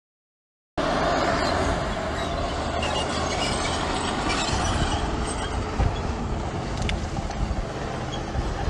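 Crawler bulldozer working, its diesel engine running steadily under metal tracks clattering and squeaking; the sound starts abruptly about three-quarters of a second in.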